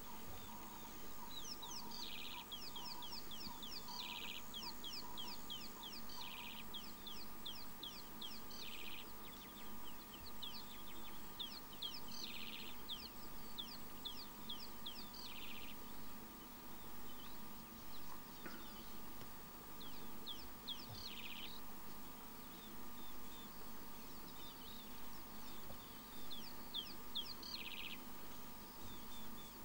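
Wild birds calling: rapid runs of high, falling notes, repeated in bursts every few seconds.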